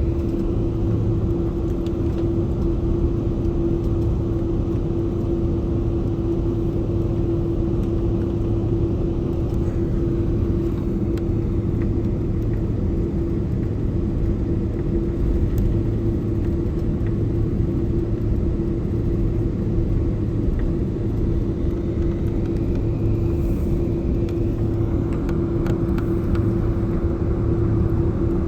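Jet airliner cabin noise: the engines and airflow make a steady low rumble with a constant mid-pitched hum, unchanging throughout.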